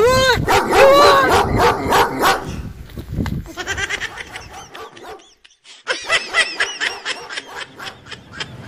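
Recorded dog barks played from a Bluetooth speaker: a run of loud barks, about two a second, then after a short lull a quick series of higher-pitched yelps.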